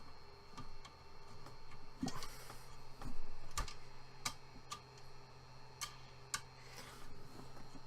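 Irregular sharp clicks and small knocks, about a dozen of them, from hands working on a 3D printer's bed and hardware while it is being loosened for leveling. A steady electrical hum from the powered printer runs underneath.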